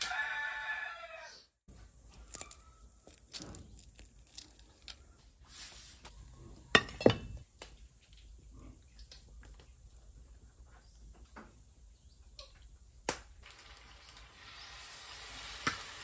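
A rooster crowing through the first second and a half. Then chopsticks stir batter in a metal bowl with scattered clicks, the loudest a sharp knock about seven seconds in. Near the end a hiss of frying in hot oil rises.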